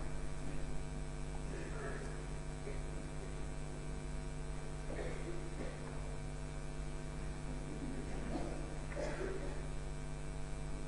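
Steady electrical mains hum with many evenly spaced overtones, with a few faint, brief scattered noises over it.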